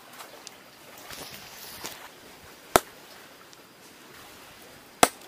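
Two sharp knocks, about two seconds apart, as a hand-held stone strikes the rock to knock sea snails loose for bait, with light scraping before them.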